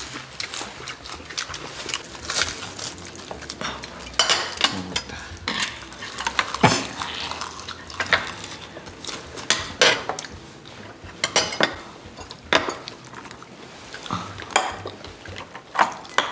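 Cutlery clicking and clinking against dishes during a meal, with many short, irregular clicks mixed with the sounds of eating.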